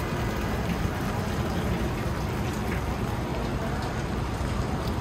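Steady rain falling, with a low, even rumble underneath.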